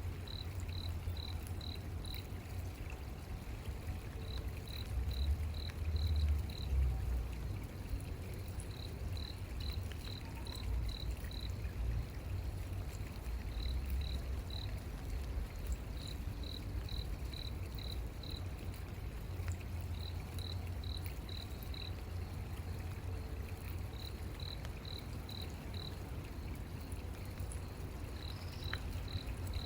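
Cricket chirping in short runs of four to six high chirps, a run every few seconds, over a steady low rumble that swells about five to seven seconds in.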